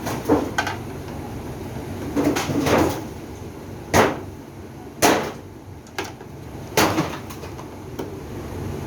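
A series of sharp knocks, hammer blows on the parts of a top-load washing machine being taken apart, about seven of them at uneven spacing of roughly a second, the strongest a little past the middle.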